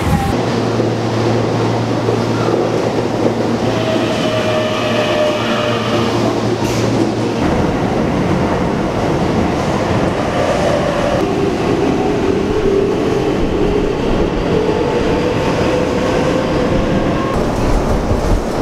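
Underground electric commuter train on the Keihan Main Line, heard from inside the car. A steady low hum gives way after about seven seconds to the heavier, even rumble of the train running through the tunnel, with the motors' whine gliding up and down over it.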